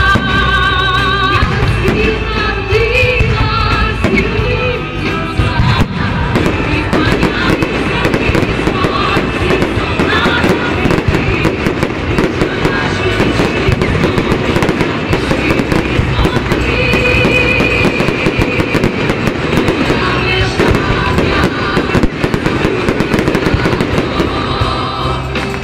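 Fireworks display: many bangs and crackles in quick, dense succession, with music playing loudly alongside.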